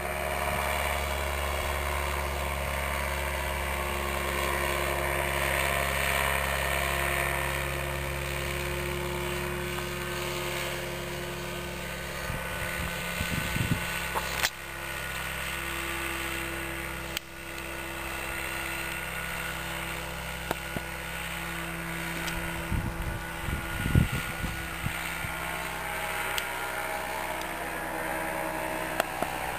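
Engine and propeller of a motorised hang glider (ultralight trike) flying overhead, a steady droning whine whose pitch shifts a little partway through. A few short crackles and thumps of wind or handling on the microphone come through about halfway and again later.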